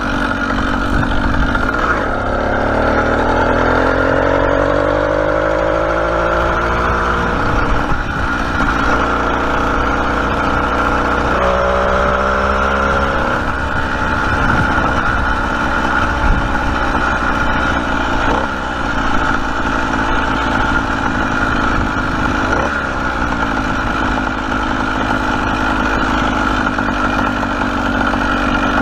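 Motorized bicycle's small engine running under way, its pitch rising as it speeds up about two seconds in and again about eleven seconds in, then holding steady.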